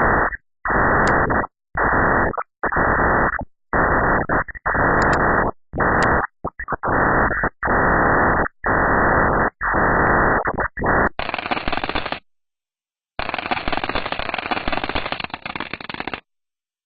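Static-like hiss of space radio emissions turned into sound, cut into segments about a second long with short silent gaps between them. About eleven seconds in, the hiss turns brighter and runs on for several seconds, with one pause.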